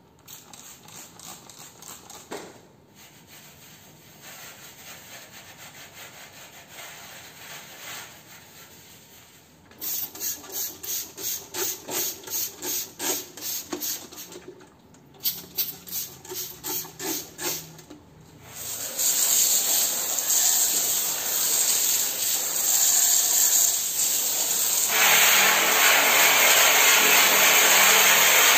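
Brush scrubbing the parts of a washing machine's inner tub, in rhythmic strokes about two to three a second. A loud steady hiss takes over about two-thirds of the way through and grows louder near the end.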